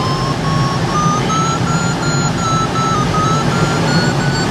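Glider variometer tone: a steady electronic whistle that steps up and down in pitch, mostly rising, as the glider climbs on tow. Under it runs a steady rush of air and a low rumble in the cockpit.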